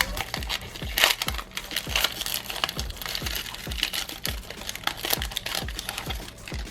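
Plastic Magic: The Gathering booster pack wrapper crinkling as it is opened and handled. Background music with a steady beat plays underneath.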